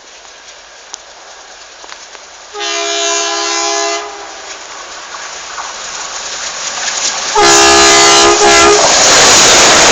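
Rajdhani Express train sounding its horn in two blasts of about a second and a half each as it approaches, the second much louder. It is followed by the loud rush of the train passing close by.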